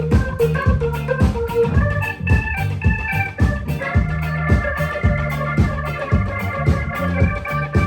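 Live band playing an instrumental passage: a steady drum beat and bass line under electric organ chords, which are held from about four seconds in.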